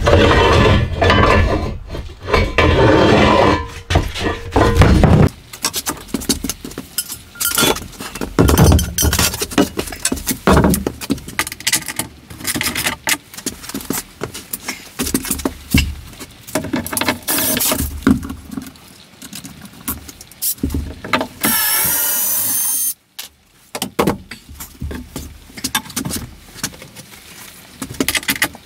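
Knocks, clunks and scraping from a porcelain wall-mount sink being lifted off its steel support bars and set down, then the steel bars and wooden frame being handled. The clatter is densest in the first few seconds, and a brief squeal comes about three-quarters of the way through.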